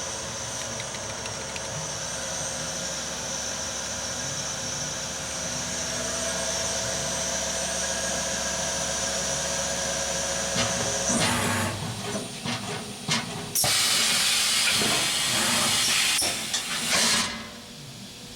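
Cincinnati Milacron Arrow 500 vertical machining center spindle running steadily at about 1,000 RPM with a high whine, stopping about ten seconds in. Then loud hissing of air: a few short blasts, and one long blast of about four seconds that cuts off near the end.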